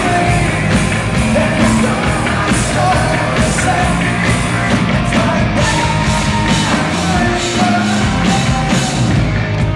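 Live rock band heard from the audience: a male lead singer sings over a full drum kit and the band.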